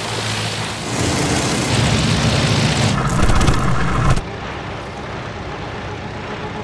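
A propeller fighter plane's engine drones loudly as it flies low over water. About three seconds in, a rapid burst of machine-gun fire brings the loudest moment and cuts off abruptly just after four seconds. A fainter, distant engine drone is left.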